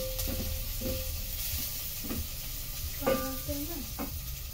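Food frying in a pan with a steady sizzle, while a utensil knocks and scrapes against the pan about once a second as it is stirred.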